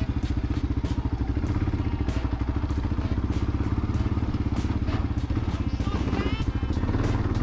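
Kawasaki KLR650's single-cylinder engine running with an even, rapid beat as the motorcycle pulls away at low speed.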